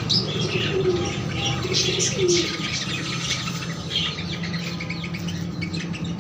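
Pigeons cooing in low gliding calls, among many quick high-pitched bird chirps, over a steady low hum.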